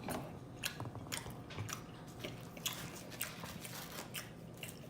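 A person chewing pizza close to the microphone: irregular wet mouth clicks and smacks, about two or three a second.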